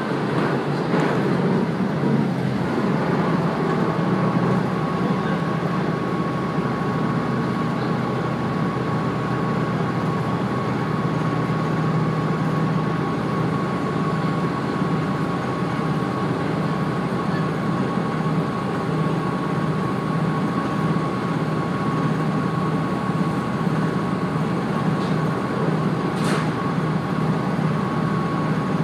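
A KiHa 48-type diesel railcar running at speed, heard from inside the car: a steady mix of diesel engine hum and wheels on rail. A thin steady whine joins a few seconds in, and a single short sharp click comes near the end.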